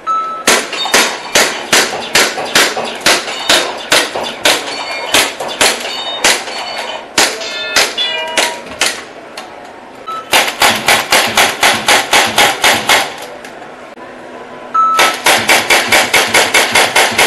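Airsoft gun fired repeatedly, each shot a sharp clack: a string of single shots for the first half, then two quick bursts of about six or seven shots a second.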